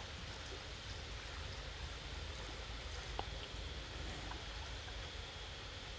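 Small lake waves lapping on a pebbly shore, a steady low wash of water, with low wind rumble on the microphone and a few faint ticks.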